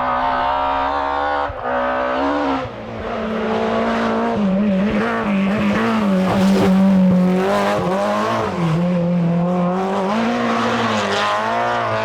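Group A BMW M3 E30 rally car's four-cylinder engine driven hard, its pitch climbing and falling repeatedly as it revs out and changes gear.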